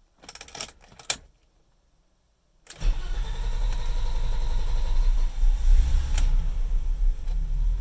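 A 1987 BMW 325i's 2.5-litre straight-six restarted hot after sitting 30 minutes. There are a few faint clicks, a pause, then the engine catches suddenly about three seconds in and runs steadily. The owner calls this the noise and the hard start that happens every time it is restarted warm.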